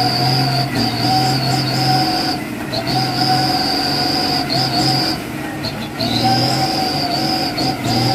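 Orange Mitsubishi Fuso 6x4 tronton truck running hard under load as it pulls a sunk truck out on a cable, with a loud, shrill whine over the engine that breaks off briefly twice.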